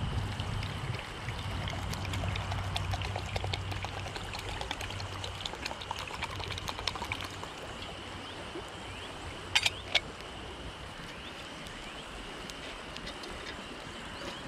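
Water poured from a bottle into a stainless steel cup, running for several seconds, over a crackling wood fire. Two sharp clicks come close together about ten seconds in.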